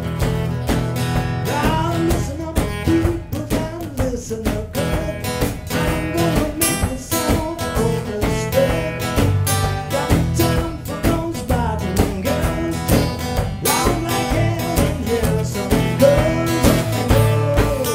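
Blues-rock band music led by guitars, with a steady beat: a rehearsal recording of an original song.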